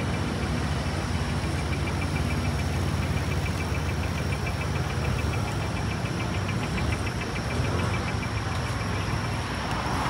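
Street traffic noise with vehicle engines running steadily, and a fast, regular high ticking over it that stops near the end.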